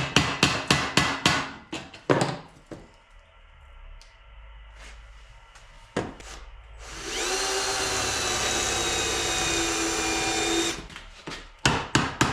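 Rapid hammer blows on steel, several a second, for the first second or two. About halfway through, a power tool such as a drill spins up, runs at a steady pitch for about four seconds and stops abruptly. The quick hammering starts again near the end.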